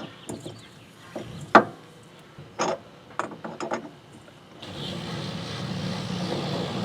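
Metal clicks and knocks of tools and parts being handled during a front wheel bearing job, one sharp knock about a second and a half in and a quick run of clicks near the middle. About two-thirds of the way through, a steady low hum starts and keeps going.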